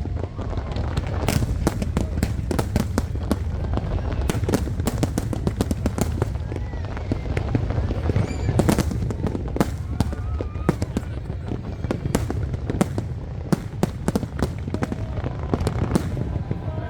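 Fireworks display: a rapid, irregular barrage of bangs and crackles over a steady low rumble, with a crowd's voices faint underneath.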